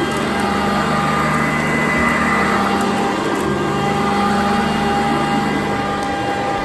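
Sanitaire upright vacuum cleaner running on carpet: a steady motor whine over a low hum that shifts slightly as the machine is worked.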